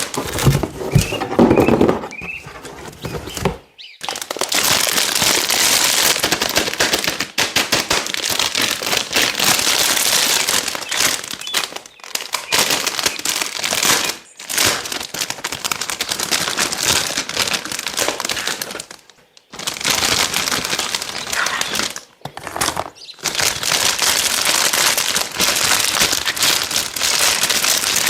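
Dense crackling and crinkling from craft material being crushed or handled, in long stretches of several seconds broken by short pauses. A few brief squeaks sound about a second in.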